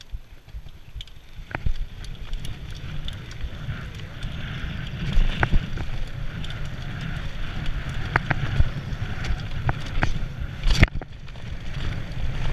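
Mountain bike riding down a dirt trail: tyres rumbling over the ground, with wind on the microphone. Sharp knocks and rattles from the bike come as it hits bumps. The sound grows louder after the first couple of seconds as the bike gathers speed.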